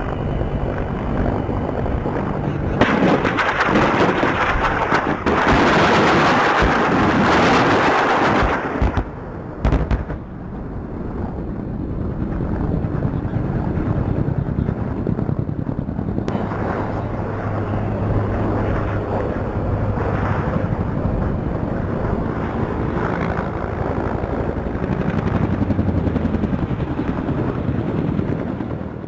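Bell AH-1Z Viper attack helicopters flying, with their rotor and turbine noise under bursts of their weapons fire. A long, loud burst starts about three seconds in and runs until about nine seconds, a short one follows near ten seconds, and then the helicopter noise goes on steadily.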